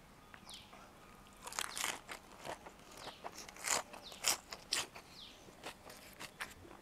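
Crunching and chewing of a mouthful of boiled pork offal (ไส้ตัน) wrapped with fresh greens. A run of crisp crunches starts about a second and a half in, and the loudest bites come near the middle.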